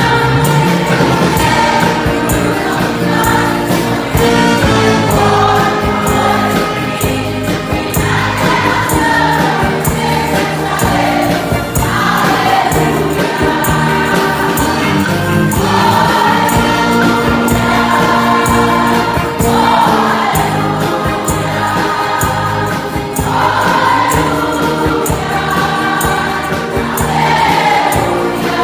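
A choir singing a gospel hymn with instrumental accompaniment, in continuous phrases.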